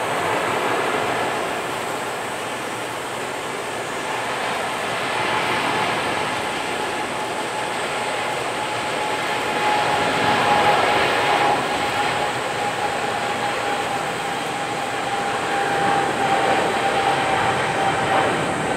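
Boeing 777F freighter's GE90 jet engines on departure: a steady jet roar with a whine that drifts slightly lower in pitch from about five seconds in.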